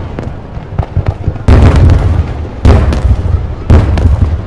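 Fireworks display: aerial shells bursting with loud booms, three big bursts about a second apart in the second half, with smaller cracks and a low rumbling echo between them.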